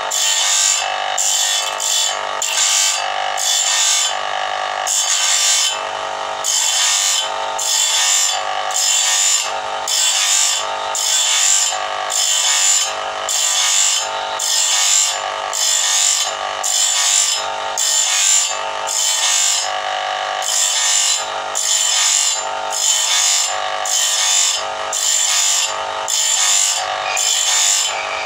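Motor-driven grinding wheel grinding the steel teeth of a sawmill bandsaw blade as the blade is hand-fed past it one tooth at a time. The result is a steady rhythm of short grinding passes, about one and a half a second, over the motor's running hum.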